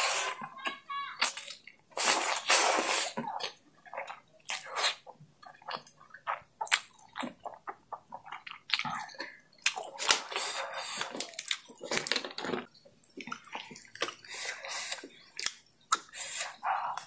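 Oily chilli-oil noodles being slurped into the mouth in several loud, wet sucking bursts, with chewing and small clicks in between.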